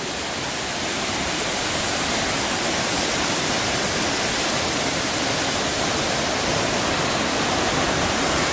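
Steady rushing noise of a tall waterfall's falling water, growing slightly louder over the first couple of seconds and then holding even.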